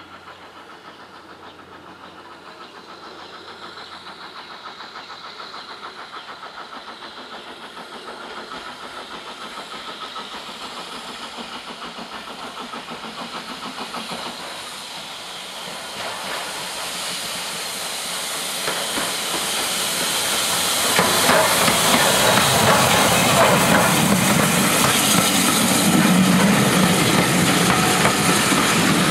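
Steam tank locomotive and its train approaching from a distance and running past close by. The sound of the engine working and steam hissing grows steadily louder, then turns loud about twenty seconds in as the engine and coaches pass.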